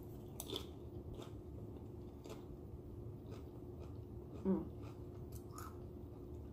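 Close-miked chewing of a mouthful of food with the mouth closed: soft, scattered mouth clicks, with a short hummed "mm" about four and a half seconds in.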